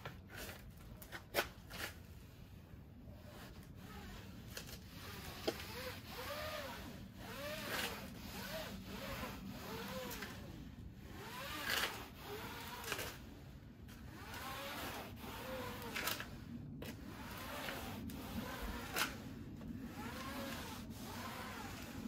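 A cleaning pad on a pole rubbed back and forth over the wet awning fabric, squeaking about once a stroke in a steady rhythm that starts about five seconds in. A few sharp clicks come before it.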